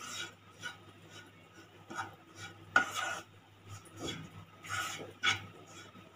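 A spatula stirring and scraping a crumbly mixture of roasted desiccated coconut and ground betel-leaf paste around a non-stick pan, in irregular strokes. The loudest stroke comes about three seconds in.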